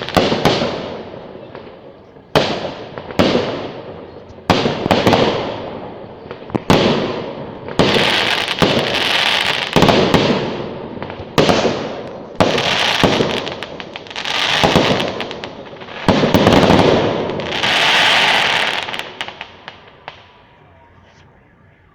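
Fireworks bursting: more than a dozen sharp bangs in quick succession, each followed by a crackling shower lasting a second or two, fading out near the end.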